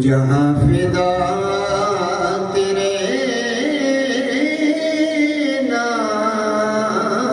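A man singing a naat, an Islamic devotional song, solo into a microphone, drawing out long, wavering melismatic notes.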